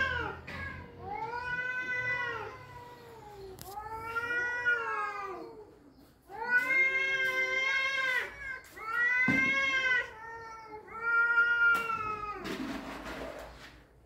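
Two domestic cats caterwauling in a fight standoff: a string of long, drawn-out yowls, one after another, each rising and falling in pitch, with a short hiss near the end.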